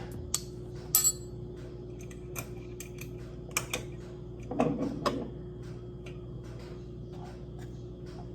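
Light kitchen clatter: scattered clicks and clinks of dishes and utensils being handled, with a louder clatter about halfway through, over a steady low hum.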